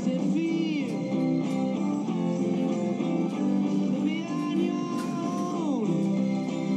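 Music with guitar playing through a RadioShack multiband radio receiver's speaker; several notes slide in pitch, with one long slide downward near the end.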